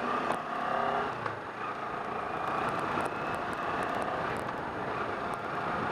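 Kawasaki Ninja 650's parallel-twin engine running while riding, mixed with wind and road noise. The engine's tones stand out most in the first second or so, then the sound settles into a steady rush.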